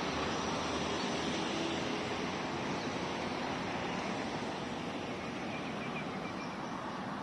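Steady outdoor rushing noise of wind and road traffic beside the road, with no distinct events.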